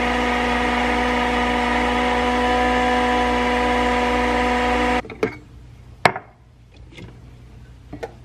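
Nespresso capsule coffee machine running with a steady whirring hum as it brews coffee into a mug, stopping abruptly about five seconds in. A few sharp clicks and knocks follow as a stainless milk frother jug is handled.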